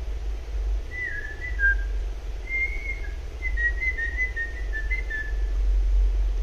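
A person whistling a short tune of quick high notes, some sliding between pitches, from about a second in until near the end, over a steady low hum.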